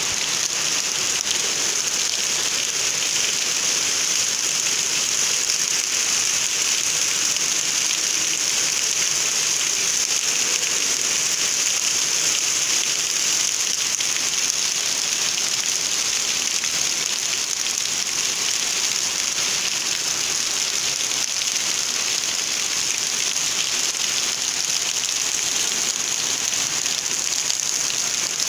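Heavy rain pouring down steadily onto a yard, an even hiss of rain hitting the ground without let-up.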